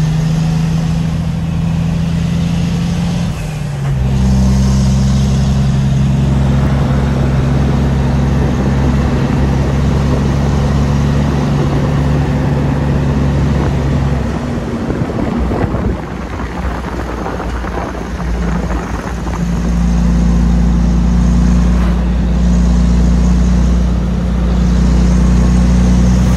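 Heavy truck's diesel engine pulling uphill, heard from inside the cab as a steady low drone over road noise. The drone dips briefly about three and a half seconds in, drops away for about five seconds past the middle, then comes back strongly.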